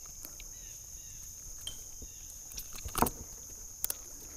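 Steady high-pitched insect chirring, with a short knock about three seconds in and two sharp clicks shortly after, from handling in the kayak.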